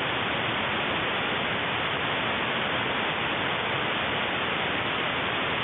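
Steady, even hiss of shortwave radio static with no programme audible: the Sound of Hope broadcast signal has dropped out under the noise.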